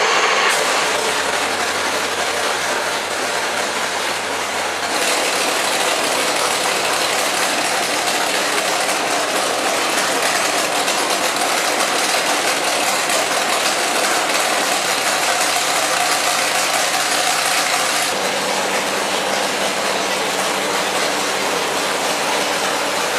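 Nelson Racing Engines' naturally aspirated 474-cubic-inch all-aluminium LS V8 running steadily on an engine dyno, without revving. It is loud throughout, its sound shifting slightly about five seconds in and again about three quarters of the way through.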